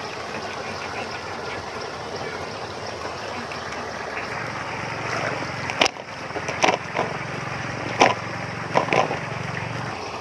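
Steady rush of water, with a low motor hum joining about halfway through and stopping near the end. Four or five sharp knocks fall in the second half.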